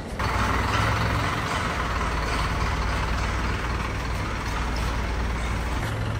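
Delivery truck's engine idling steadily, a low even hum with a constant rushing noise over it.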